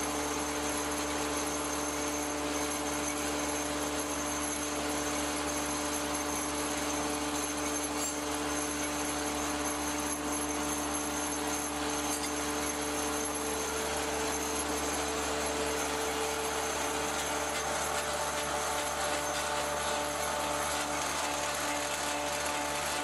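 1885 Ober copying lathe, an old chain- and belt-driven axe-handle lathe, running steadily: a continuous mechanical hum with a constant note and no breaks.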